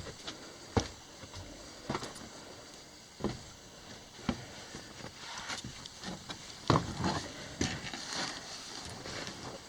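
Footsteps on a mine tunnel's rock-and-dirt floor, a short knock about once a second, with a busier patch of scuffing steps about seven seconds in.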